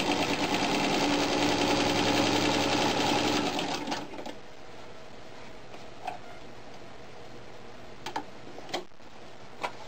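A 1937 Singer Model 127 sewing machine, driven by its 'B' electric motor, running and stitching steadily, then stopping about four seconds in. A few light clicks follow.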